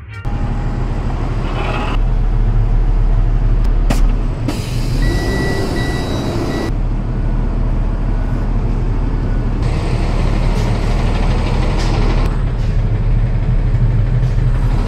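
Box truck engine and road noise during driving, a steady low drone, with a short hiss about five seconds in.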